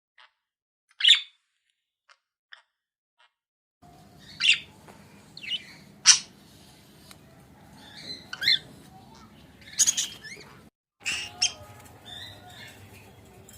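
Small pet parrots such as budgies chirping and warbling, with several loud, sharp calls. A single loud call comes about a second in. After about four seconds the calls come every second or two among softer chatter.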